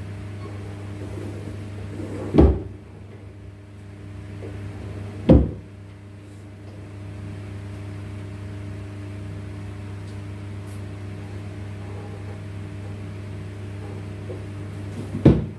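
Steady low electrical hum with three sharp knocks, two a few seconds apart near the start and one near the end.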